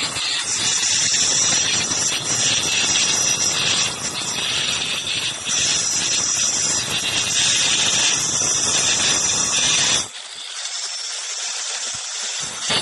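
Handheld electric marble cutter with a diamond blade running at full speed and grinding through a stone slab, a steady harsh screech. About ten seconds in the sound drops and thins to a quieter high whine.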